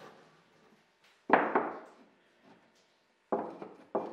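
Slotted wooden blocks being set down and knocked into place on the plywood floor of a box: a pair of sharp wooden knocks about a second in, the loudest, and another pair near the end.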